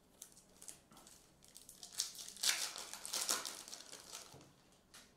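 Foil trading-card pack wrapper crinkling as the pack is torn open and the cards are slid out, loudest for about two seconds in the middle, with a few light clicks of cards being handled.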